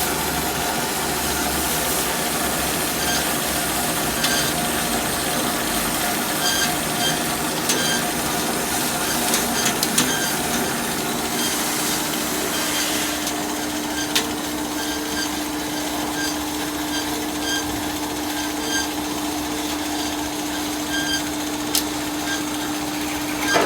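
Portable line boring machine running, its boring bar cutting metal: a steady machining noise with faint regular ticks, joined by a steady hum about halfway through.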